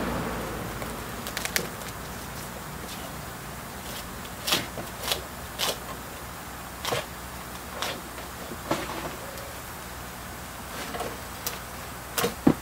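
Short scrapes and knocks, about a dozen at uneven intervals, of a wooden root stick being worked into the moss-covered soil of a bonsai root ball to loosen it for repotting, over a steady low hum.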